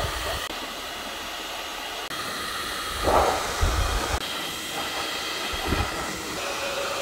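Handheld hair dryer blowing steadily as hot air is played over a car's vinyl bonnet wrap to soften it for peeling, with a few low bumps a little past the middle.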